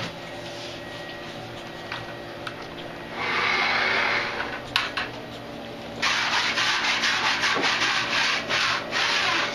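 Rough rubbing and scraping of a 2mm flooring sheet being handled against the glued floor, in two spells: one of over a second about three seconds in, then a longer, fluttering one from about six seconds. A sharp click comes between them.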